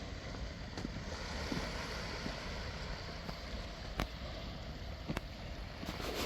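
Steady low rumbling outdoor noise, with a couple of sharp clicks about four and five seconds in.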